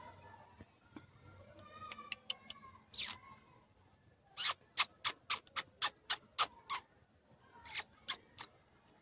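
Faint short animal calls, then a quick run of about a dozen sharp clicks or squeaks, roughly four a second, with a few more near the end.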